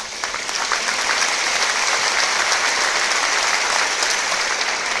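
A large audience applauding, building up over the first second and then holding steady.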